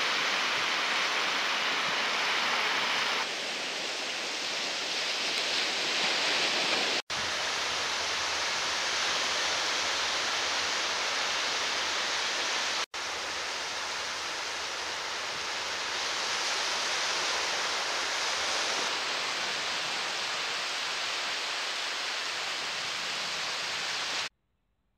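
Steady rush of surf washing on a sandy beach, its level changing abruptly several times. It cuts to silence about a second before the end.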